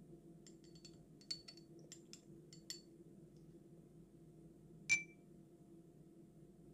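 A glass ink bottle and dropper being handled: a run of light clicks and taps, then, about five seconds in, a single sharp glass clink with a short ring as the bottle is set down among the other ink bottles. A faint steady hum underlies it.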